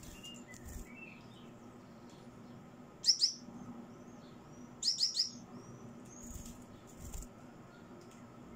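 Gouldian finches calling: two sharp, high, downward-sliding chirps about three seconds in and three more about five seconds in, with softer short calls between.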